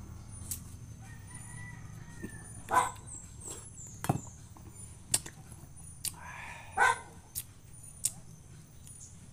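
A rooster crowing in the background, about two thirds of the way in, over sharp clicks of a metal spoon scraping pulp from a yellow passion fruit shell and the slurping of eating.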